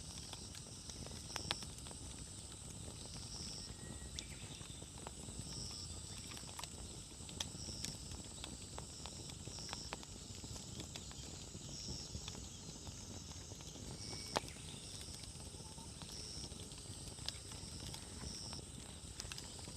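Wood campfire burning: a low steady rumble of the flames with scattered sharp crackles and pops, one louder pop about three-quarters of the way through. A steady high hiss and short high chirps about once a second run underneath.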